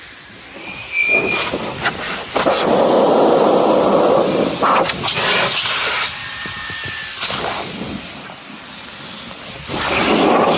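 Air rushing into an inflatable raft from an inflator, a steady hiss that runs loud for about four seconds from two seconds in, eases off, then comes up loud again near the end.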